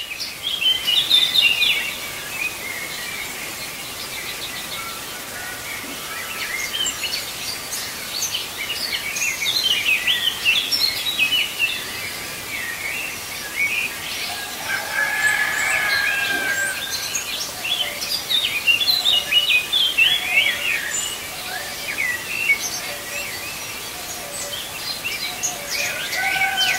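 A chorus of many birds chirping, dense short high chirps over a steady background hiss, with a few longer held calls about halfway through and near the end.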